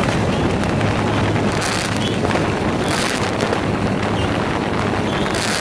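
Drone's propellers and motors running steadily, picked up by its own onboard camera microphone with wind rushing over it. A steady low hum runs under the noise, and a few brief bursts of hiss come and go.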